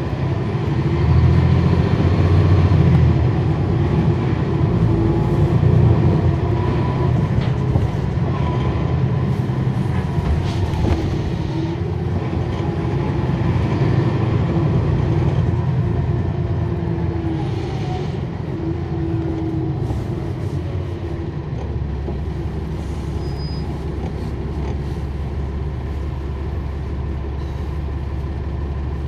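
Cummins ISL9 diesel engine of a NABI 40-ft transit bus, heard from inside the bus: a deep running rumble, strongest in the first few seconds, easing off through the middle and settling into a steadier, lower rumble about two-thirds of the way through.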